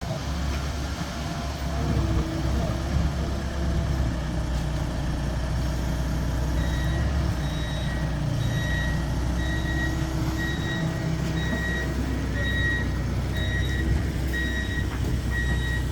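A vehicle's engine runs with a steady low rumble. Partway through, a reversing alarm starts beeping, a high repeated beep about one and a half times a second: the vehicle is backing up.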